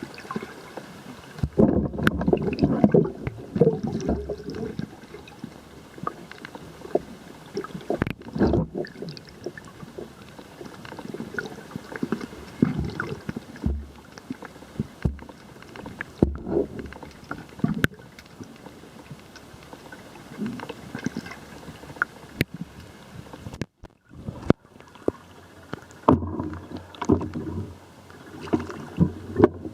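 Pool water sloshing and slapping right at an old camera's microphone, in irregular muffled surges with sharp knocks now and then.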